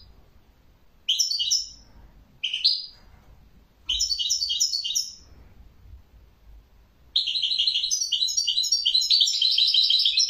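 European goldfinch (chardonneret) singing: three short twittering phrases, then a long unbroken run of fast, high, jingling song from about seven seconds in.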